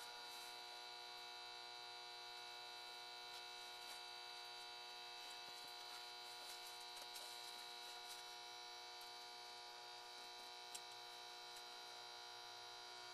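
Faint steady electrical hum made of several unchanging tones, with a few tiny ticks and one small click near the end.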